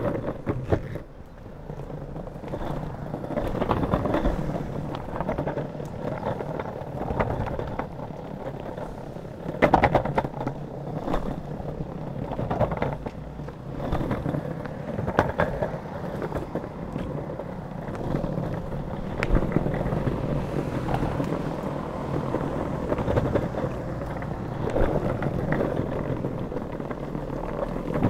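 Pantheon Trip drop-through longboard's wheels rolling over asphalt and brick block paving: a steady rumble broken by clicks and a few sharper knocks as the wheels cross the joints and bumps.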